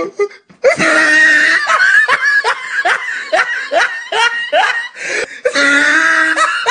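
Loud, hearty laughter: a string of short 'ha' calls, each falling in pitch, about two a second, ending on a longer held call.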